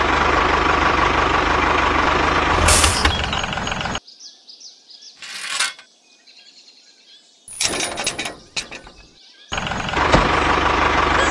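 Tractor engine running steadily, cutting off about four seconds in. After a few seconds of quiet with one short burst and a cluster of light clicks and knocks, the engine sound starts again near the end.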